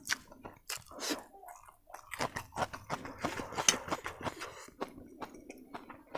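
A person eating spicy noodles close to the microphone: slurping the strands in and chewing with wet, smacking mouth sounds, a steady run of short clicks and smacks that thickens for a moment in the middle.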